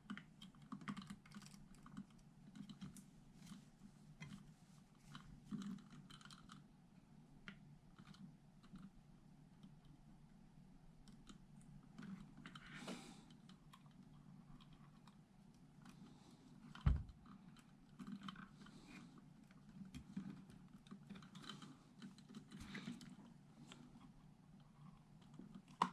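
Faint, scattered small clicks and light taps from handling wires, a switch and soldering tools at a workbench while lining up a wire to solder, with one louder knock about 17 seconds in.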